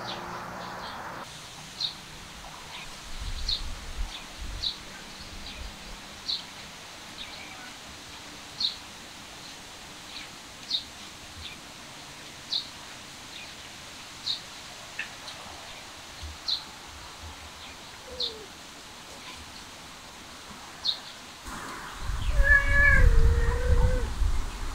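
Short, high chirps from a small bird repeat every second or two. Near the end a cat meows loudly, one long drawn-out call, over a low rumble.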